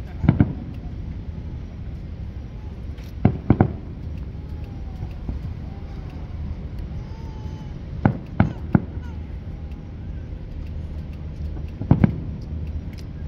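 Aerial firework shells bursting with sharp booms: one near the start, a pair about three seconds in, three in quick succession about eight seconds in, and one near the end, over a steady low background noise.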